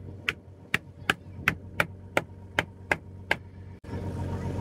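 Knife chopping, nine even strokes at about two and a half a second. A steady engine hum comes in near the end.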